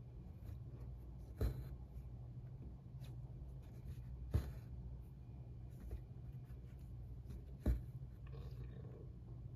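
Hand cross-stitching on 25-count Lugana evenweave fabric: a needle and thread worked through the taut cloth with a scratchy rub, and three sharp taps about three seconds apart. A faint rasp of thread comes near the end, over a low steady hum.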